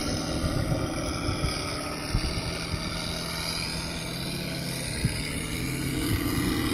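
Simulated P-47 warbird engine idling steadily, played by an MrRCSound 4.1 sound module through transducers fitted in a 1600 mm RC P-47 model. Wind rumbles on the microphone.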